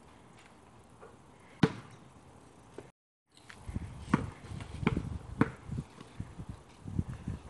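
A basketball smacks once on asphalt about a second and a half in. After a brief cut to silence comes a run of irregular knocks and low thumps.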